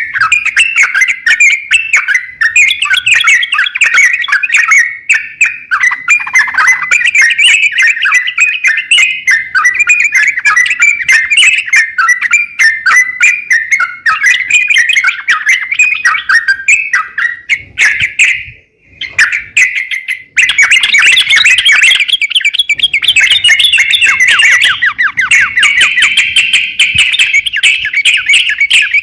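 A crokcokan songbird singing a loud, continuous chattering song of fast, varied chirps and whistles. It breaks off briefly about two-thirds of the way through, then resumes in a quicker run of notes.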